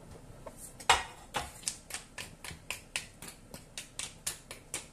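Clam shells clicking and clacking against one another and the pan as they are pushed by hand into the noodles, a quick irregular run of sharp clicks, the loudest about a second in.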